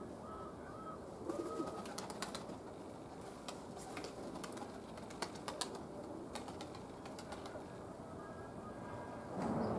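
Domestic pigeons cooing, with a stronger coo near the end, and a scattering of sharp clicks.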